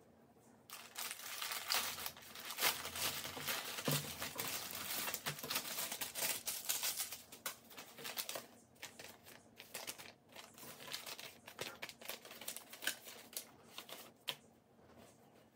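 Plastic packaging crinkling and rustling as a courier mailer is opened by hand, dense for the first half, then sparser crackles as the plastic zip pouches inside are handled and one is opened, stopping near the end.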